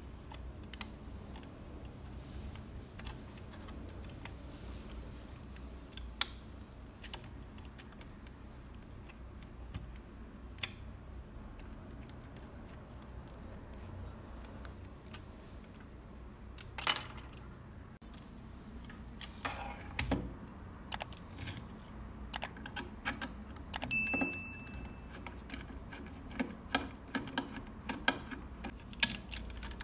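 Small clicks and clinks of a screwdriver and small parts being handled on a scale model pickup truck as it is taken apart. A few louder knocks come about 17 seconds in, and the clicking grows quicker near the end as screws on the model's underside are worked.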